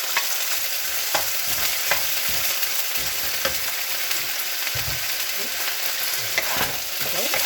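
Chicken pieces and celery sizzling steadily in a hot frying pan as they are stir-fried, with a utensil knocking and scraping against the pan now and then.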